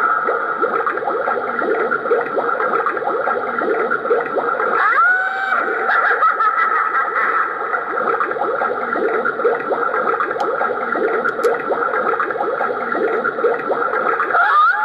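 A spooky Halloween sound effect playing from a toy flashlight's small built-in speaker: continuous wavering, eerie tones with a rising swoop about five seconds in.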